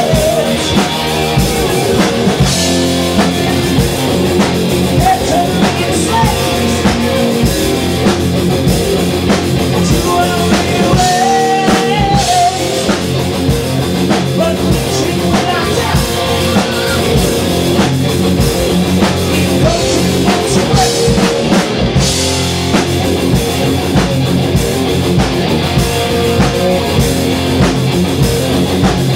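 Live heavy metal band playing: electric guitars, bass guitar and drum kit.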